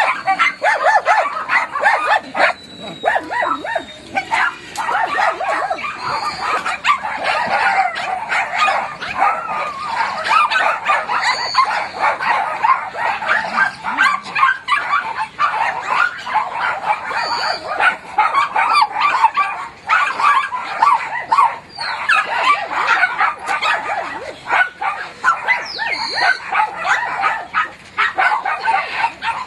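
Many small caged dogs barking and yapping all at once, their overlapping barks running together into a continuous din with no pauses.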